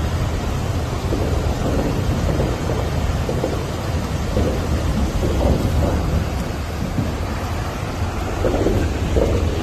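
White water rushing down a concrete river chute, a loud, steady rush heard from right beside the falling water.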